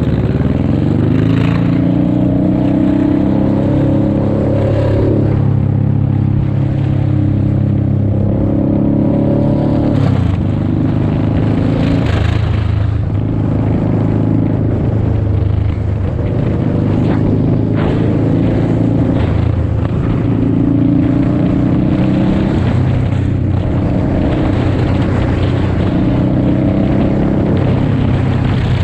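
Motorcycle engine running at highway speed, its pitch climbing slowly and dropping back several times as the throttle and gears change, with a sharp drop about ten seconds in, over steady wind and road noise.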